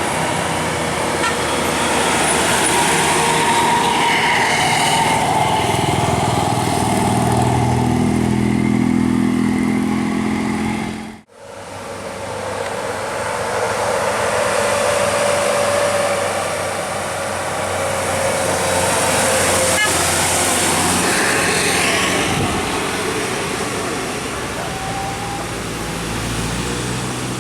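Buses passing with engines running while a bus horn sounds long held tones. The engine rises in pitch as a bus speeds up, then the sound cuts off suddenly and comes back with another horn tone over traffic.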